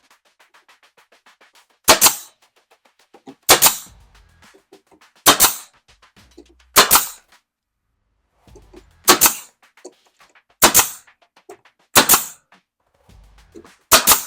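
Nail gun firing eight times, one to two seconds apart, each shot a sharp double crack as it drives a nail into the wood backing.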